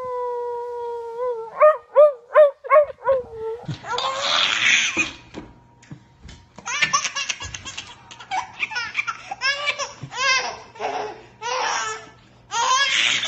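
A small dog howls with its muzzle raised: one long, slightly falling howl that breaks into a string of short yelping howls. After that, a baby laughs in repeated fits.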